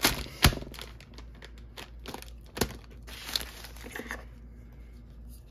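Empty Pokémon mini-pack wrappers crinkling and crackling as hands gather them into a pile. There are several sharp crackles in the first few seconds, and it turns quieter after about four seconds.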